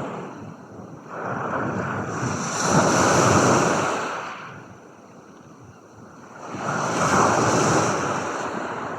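Ocean surf: two waves wash in, each swelling to a peak and falling away, about four and a half seconds apart.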